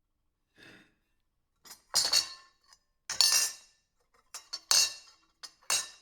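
Silverware clinking against a plate: a faint touch, then four loud, bright clinks about a second apart, each with a few smaller taps around it.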